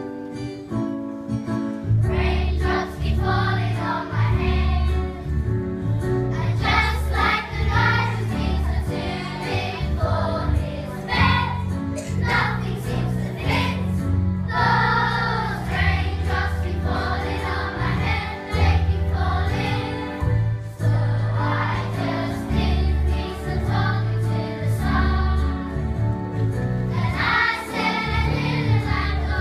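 Children's school choir singing a pop-song medley together over an instrumental accompaniment with a steady bass line. The accompaniment starts alone and the children's voices come in about two seconds in.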